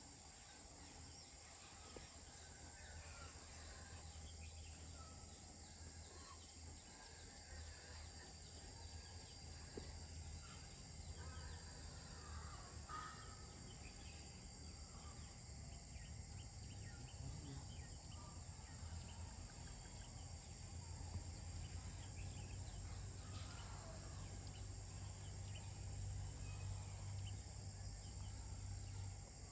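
Crickets and other insects chirring in a steady, high-pitched drone, with a low rumble underneath that grows louder in the second half.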